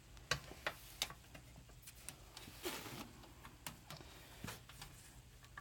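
Scattered light clicks and taps, irregular and a few a second, from handling the plastic box fan, over a faint steady low hum.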